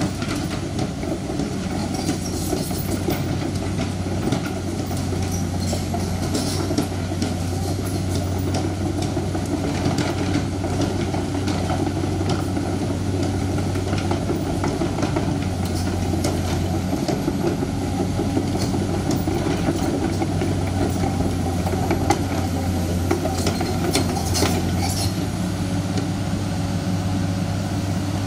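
Komatsu crawler excavator's diesel engine running steadily, with scattered clanks and knocks from its steel tracks and rocks as it works and travels over the stony road. A cluster of sharper knocks comes near the end.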